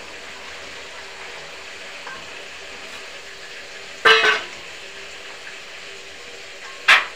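Steel kitchen bowls clanking twice over a steady low hiss: a short, loud clank about four seconds in and another, sharper one near the end.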